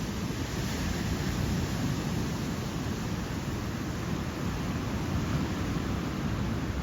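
Steady rush of ocean surf mixed with wind noise on the microphone, heaviest in the low end, with no separate breaks or impacts standing out.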